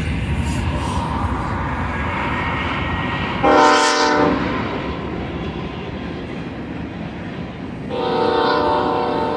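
Horn of the lead BNSF GE ES44DC locomotive sounding its multi-tone chord: a short blast about a third of the way in, then a long blast starting near the end. Underneath is the steady rumble of the locomotives' diesel engines and of tank cars rolling past on the rails.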